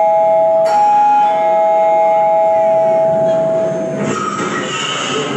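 Recorded backing music of long held notes, with a sharp chime-like strike about a second in. About four seconds in, it changes to a brighter, busier passage.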